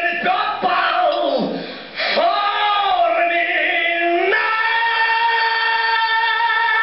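A boy's wordless singing voice, sliding up and down in pitch, then holding one long steady note from about four seconds in.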